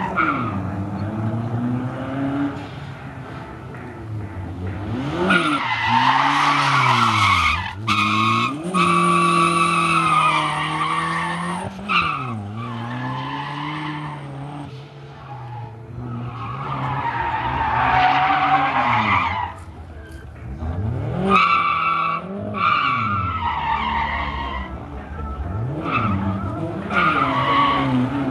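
Toyota MR2's four-cylinder engine revving up and down through a drift session, with about five stretches of tire squeal, each a few seconds long, as the rear tires slide.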